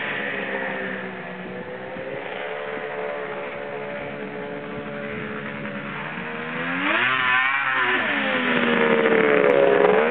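1995 Arctic Cat Thundercat 900 snowmobile's two-stroke triple engine running as it rides, its pitch wandering; in the later part it revs up and drops back sharply twice and grows louder.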